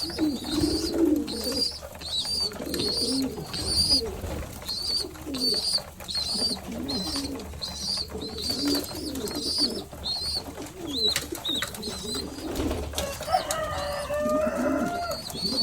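Homing pigeons cooing continually in a small room, with a high, thin chirp repeating a little over once a second over the coos. A brief, higher call comes about three-quarters of the way through.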